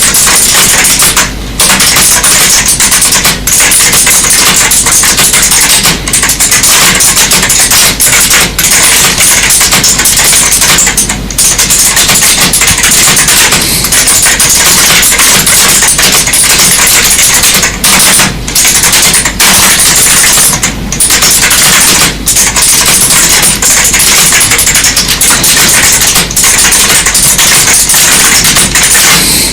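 Computer keyboard being typed on fast, a dense run of key clicks with a few short pauses.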